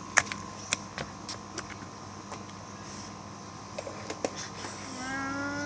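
A steady background hum with scattered light clicks and taps as plastic toys are picked up from the grass. Near the end comes a drawn-out, slightly rising vocal sound.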